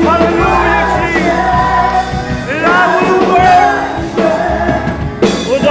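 Live praise-and-worship song: several singers on microphones singing together over band accompaniment, through the sanctuary's loudspeakers.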